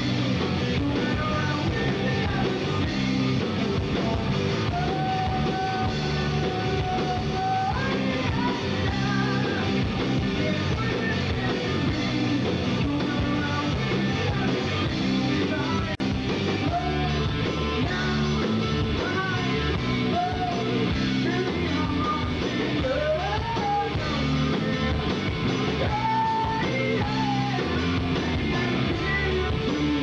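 Live rock band playing: electric guitar and drums, with a vocalist singing held and sliding notes over them.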